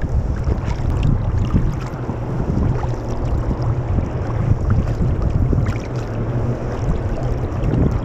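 Wind buffeting the microphone over water splashing and lapping along a sea kayak's hull as it sails along. The rumble is steady, with scattered small splashes.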